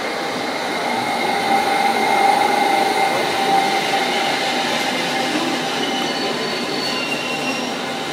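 A London Underground S Stock train pulling into the platform and slowing to a stop: rumbling wheels on rails with a steady whine. Short, higher tones come in over the second half as it slows.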